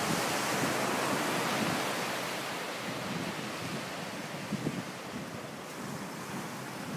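Ocean surf breaking and washing up a sandy beach, a steady rushing, with some wind buffeting the microphone. It is a little louder in the first couple of seconds and eases after that.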